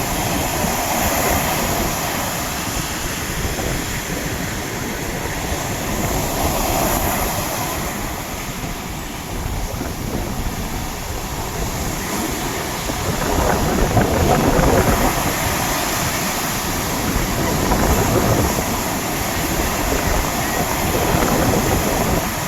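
Sea waves breaking on the shore in a continuous rushing surf. It swells every few seconds and is loudest about halfway through.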